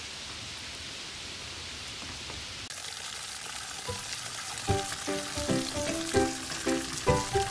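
A steady hissing noise, with background music of short, plucked-sounding notes coming in about halfway through and getting louder toward the end.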